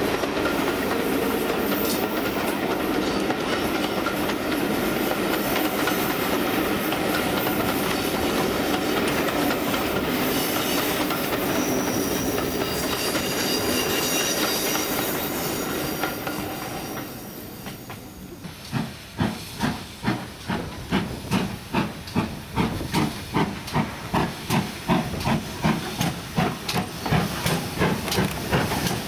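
Train rolling by, a steady rumble of wheels on rail with some faint squealing. Then, after a brief lull, a steam locomotive's exhaust chuffs in a steady beat of about two a second as it works a train.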